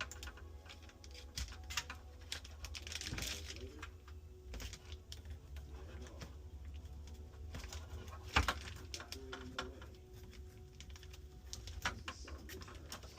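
Scattered clicks, taps and knocks of parts and tools being handled, over a steady low hum.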